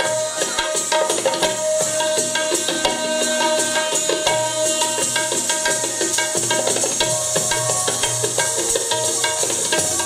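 Tabla playing a fast rhythm, with deep bass strokes at fairly even spacing, over a steady held note.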